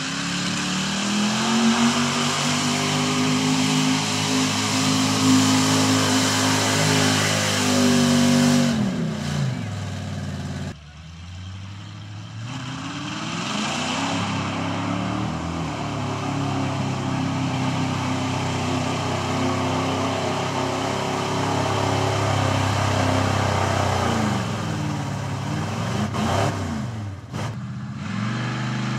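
Modified pickup trucks' engines revving hard under load in a mud pit, the pitch climbing, holding and dropping with the throttle. The sound cuts off abruptly about ten seconds in and again near the end, and a different truck's engine takes over each time.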